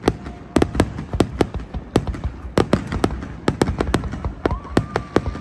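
Aerial fireworks shells bursting in quick, irregular bangs and crackles, several a second, with a faint whistle coming in near the end.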